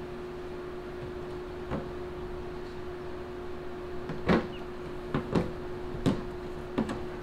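Scattered short knocks and clunks from a plastic rooftop cargo box being handled, the loudest a little past the middle, over a steady hum.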